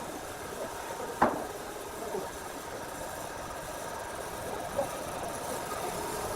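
Steady mechanical running noise with a hiss, broken by one sharp knock about a second in and a softer one near the end.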